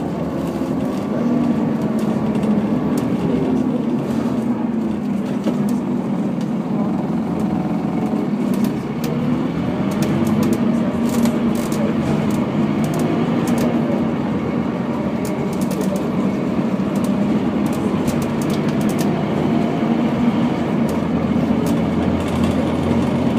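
Scania OmniDekka double-decker bus heard from inside the passenger saloon while driving: a steady engine and road drone, with frequent light rattles and clicks of the interior fittings.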